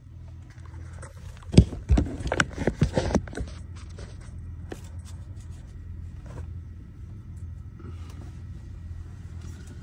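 Camera being handled right at the microphone: a couple of seconds of knocks, bumps and rubbing, then quieter fumbling, over a steady low hum.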